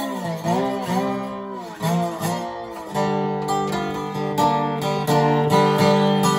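Epiphone Dobro Hound Dog Round Neck, a laminated-maple resonator guitar with a spider-bridge Dobro cone, played with a slide. Its notes glide down and back up for the first few seconds, then picked chords ring out steadily from about three seconds in.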